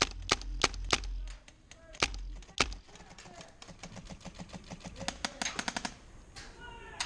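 Airsoft guns firing during a game: a handful of sharp, loud single shots in the first three seconds, then a fast string of fainter shots, like a full-auto burst, about five seconds in.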